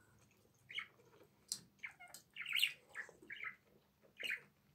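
A small pet bird chirping, a few short calls, with a few sharp clicks between them.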